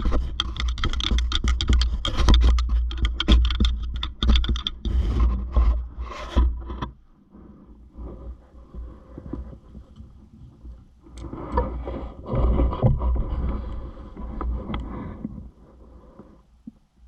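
Close rustling and scraping with a low rumble and many sharp clicks, loud for about the first seven seconds, then quieter, with another burst of rustling from about eleven to fifteen seconds in.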